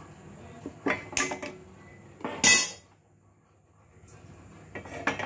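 Metal cookware and utensils clattering at a gas stove: a few sharp knocks about a second in and again near the end. Between them, about two and a half seconds in, comes a short loud rush of noise.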